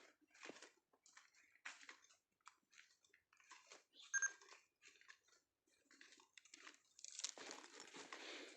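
Faint, irregular crunching footsteps on a gritty surface, with a brief high chirp about four seconds in and a steadier hiss near the end.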